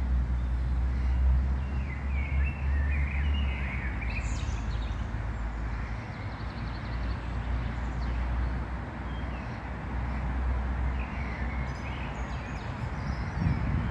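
Outdoor ambience: a steady low rumble with a hiss over it, and birds chirping briefly about two to four seconds in and again later on.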